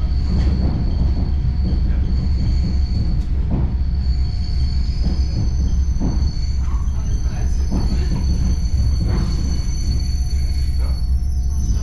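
Suburban electric train running, heard from inside the carriage: a steady low rumble with irregular knocks of the wheels over the rails. Thin high-pitched squeal tones from the wheels on the rails join in, and more of them come in after a few seconds.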